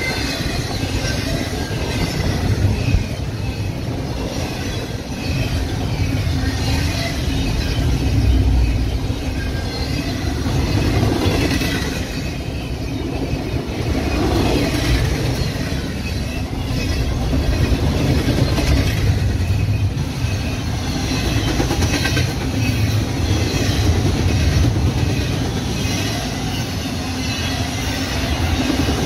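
Long intermodal freight train of double-stacked container well cars and trailer-carrying flatcars rolling past at close range: the steady, loud noise of steel wheels on rail, swelling and easing every few seconds as the cars go by.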